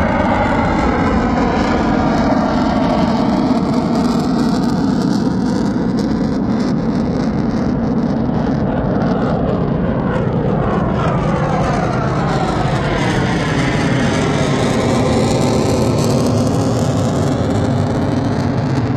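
Military fighter jet flying past overhead: loud, steady jet engine noise with a swirling whoosh that sweeps down in pitch and then back up as it passes.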